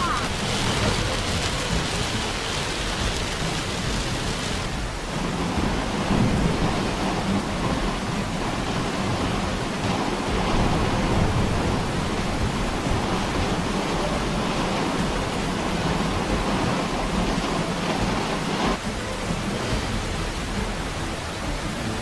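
Heavy rain falling on a car's windshield and roof, heard from inside the car: a steady rushing noise with a low rumble underneath. The sound shifts abruptly about five seconds in and again near the end.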